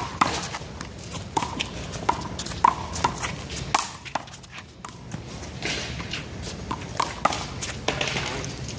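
Rubber handball rally in one-wall handball: the ball is slapped by hand and smacks off the wall and pavement, about a dozen sharp smacks at uneven spacing, with a lull about four seconds in.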